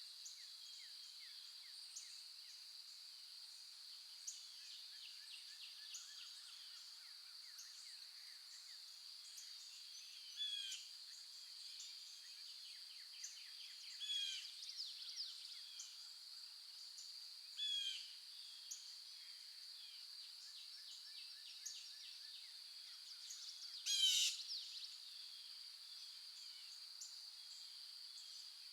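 Birds chirping and calling in a morning chorus: many short chirps, with louder calls about 10, 14, 18 and 24 seconds in, the one near 24 seconds the loudest. Under them runs a steady high-pitched drone.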